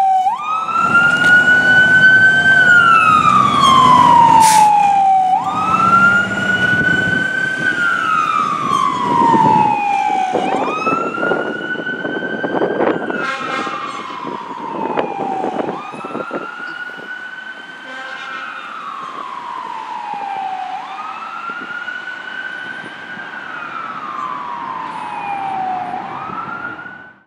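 2018 E-One Typhoon fire engine's siren sounding a wail: a quick rise, a brief hold and a slow fall in pitch, repeating about every five seconds. It grows fainter as the truck drives away.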